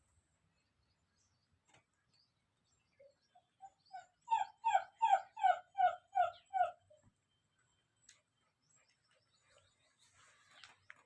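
A puppy giving a quick run of about a dozen short, high yelps, roughly three a second, each dropping slightly in pitch, starting about three seconds in and lasting about four seconds.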